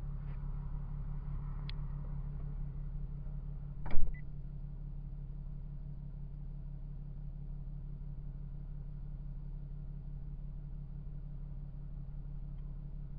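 Steady low hum inside a parked car, picked up by a windshield-mounted dashcam, with one sharp knock about four seconds in.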